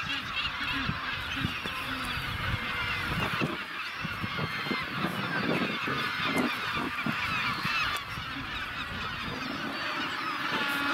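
Magellanic penguin colony calling: a dense, overlapping chorus of many penguin calls, over a low, uneven rumble.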